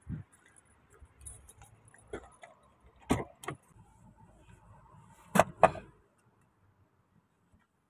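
Clicks, knocks and a light jingle of keys as people settle into a car. The two loudest knocks come close together about five and a half seconds in.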